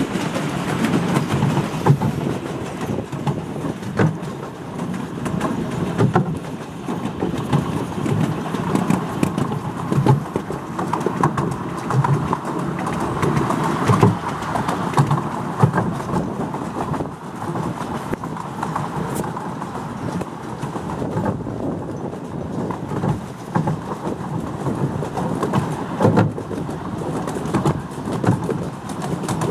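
Miniature steam train running along 7¼-inch gauge track, heard from the rear passenger carriage: a steady rolling noise with a short knock every couple of seconds as the wheels cross rail joints, and the steam locomotive working at the front.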